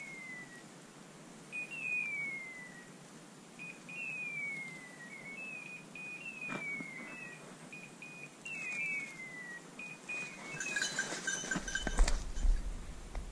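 A hunting dog's beeper collar in point mode, repeating a falling whistled call about every two seconds with short flat beeps between; this is the signal that the setter is on point. Near the end there is a louder burst of crackling and rattling.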